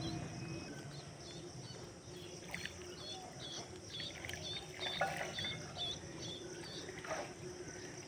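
A bird bathing in shallow water, splashing briefly a few times. Through the middle a bird chirps a run of short high notes, about three a second.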